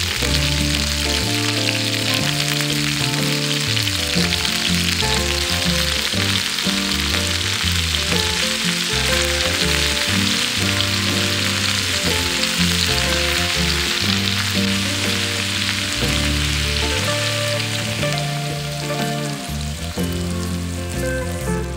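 Food sizzling in hot oil in a frying pan, a dense steady sizzle that fades over the last few seconds, with background music playing underneath.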